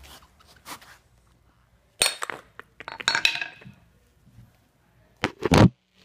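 A series of sharp clinks and knocks from hard parts being handled: one about two seconds in, a cluster around three seconds, and two louder knocks near the end.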